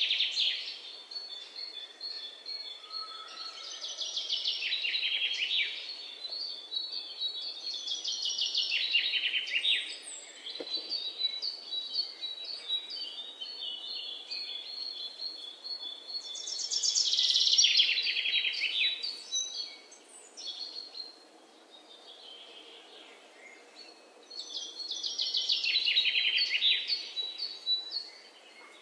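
Birds singing: phrases of rapid high trills and chirps every few seconds, with some short held notes, over a faint steady hiss.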